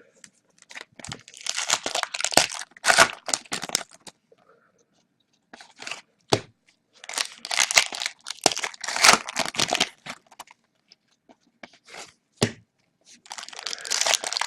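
Foil trading-card pack wrappers being torn open and crinkled, in three rustling bursts of a few seconds each with a few sharp clicks between.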